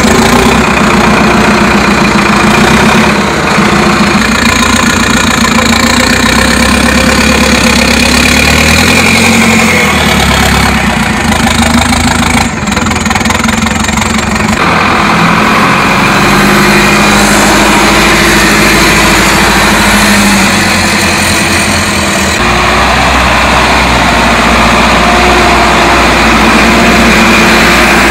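Avia trial truck's engine running at low speed under load as it crawls over rough ground, its note changing abruptly a couple of times.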